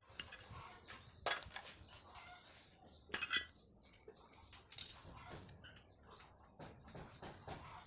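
Scattered metal clinks and knocks of steel parts being handled, the sharpest about a second in, about three seconds in and near five seconds, with a few short high chirps between them.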